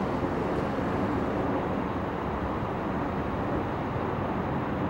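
Radial piston engine of a North American Harvard trainer running at taxi power, a steady low engine drone.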